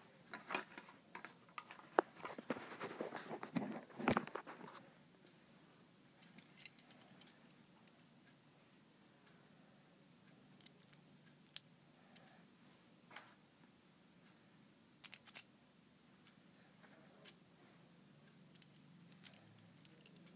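Small metal and plastic Beyblade top parts being handled and clicked together by hand: a busy run of rustling and clicking in the first few seconds, then scattered faint clicks and taps as the pieces are fitted.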